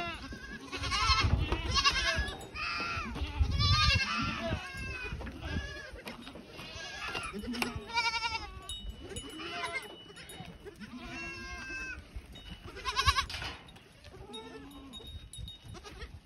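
A herd of goats, does and kids, bleating in many overlapping, quavering calls, loudest in the first few seconds and again briefly near the end. The kids have just been released back to their mothers, and the two call to each other to find one another.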